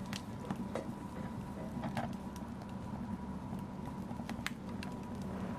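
Wood fire crackling in a fireplace: irregular sharp pops and snaps over a steady low roar of the flames, with a louder pop about two seconds in.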